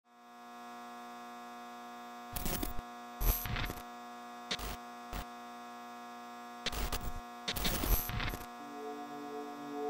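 Electronic mains-style hum fading in, broken by about six short bursts of crackling static glitch noise between roughly two and eight and a half seconds. Near the end, held musical tones begin to swell in.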